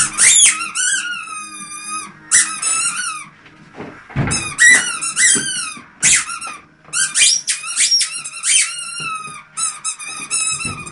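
A dog's squeaky toy squeaking over and over as the dog bites and chews it: quick runs of short, high squeaks that slide in pitch, with brief pauses between the runs.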